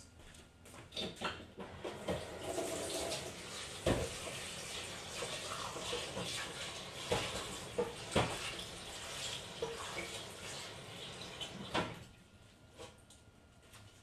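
Cold water running into a bowl of kneaded flour dough, starting about two seconds in and stopping near the end, with a few knocks along the way.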